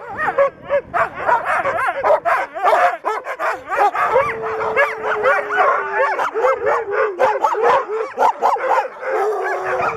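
A team of harnessed sled dogs barking, yipping and yelping all together, many voices overlapping without a break. One dog holds a long howl about four seconds in, and another howl rises near the end.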